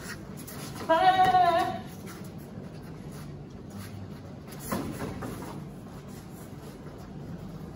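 A taekwondo fighter's high-pitched kihap shout of just under a second, about a second in. A single short thud follows a few seconds later, over a steady low room hum.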